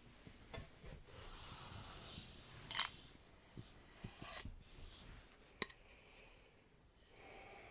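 Faint handling noise: scattered small clicks, taps and rustling, with two sharper clicks, one near the middle and one later on.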